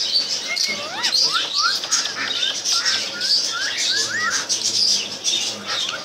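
Caged birds chirping: a run of short rising whistles for a few seconds, over a constant high twittering.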